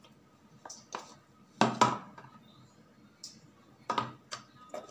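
A few light clicks and knocks of a spoon against a bowl as ginger-garlic paste is added to the mixture, the loudest about two seconds in.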